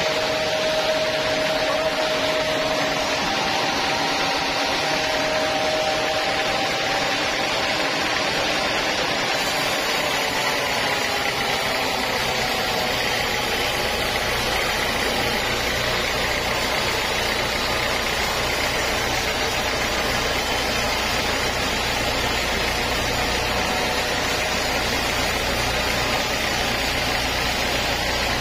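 Bandsaw mill running and sawing lengthwise through a teak log, a steady hiss of the blade in the wood over the machine's motor noise. About ten seconds in, a steady low engine hum comes in beneath it.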